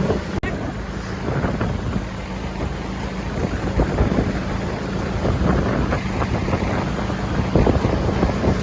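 Boat motor running steadily under way, with wind buffeting the microphone.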